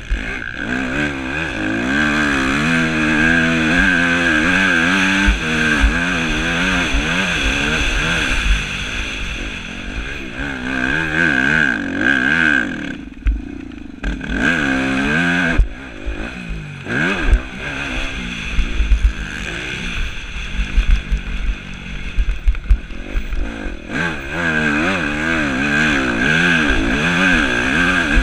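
Yamaha YZ250F's single-cylinder four-stroke engine revving up and down again and again as the motocross bike is ridden hard, with the throttle closed briefly about halfway through before it pulls again. Low thumps run under the engine throughout.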